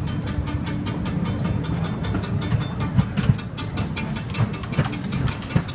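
Bumper car running, a steady low rumble with irregular clattering knocks as it drives.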